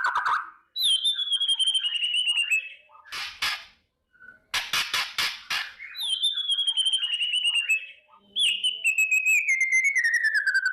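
White-rumped shama (murai batu) singing rapid buzzy trills that fall in pitch, three times, with bursts of harsh rattling strokes between the first and second: its 'kretekan' rattle song.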